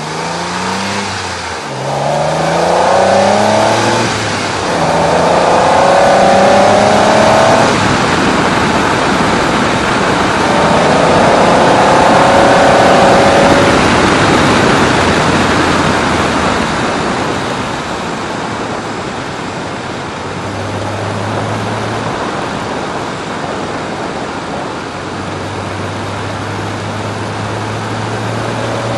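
Vauxhall Cavalier GSi 4x4's X30XE 3.0 V6 engine pulling hard through the gears on the road: the engine note climbs in pitch several times with short breaks at the gear changes, then settles to a steadier, lower note under tyre and wind noise.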